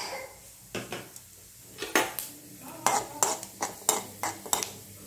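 Steel spoon repeatedly scraping and clinking against a metal kadai while stirring cumin seeds in hot oil. The strikes come sparsely at first, then about three a second from about two seconds in, over a light sizzle of the seeds starting to splutter.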